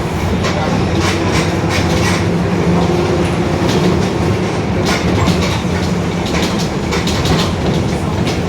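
Mercedes-Benz OF-1721 bus's rear differential droning very loudly while the bus drives, a steady low drone with many small knocks and rattles over it.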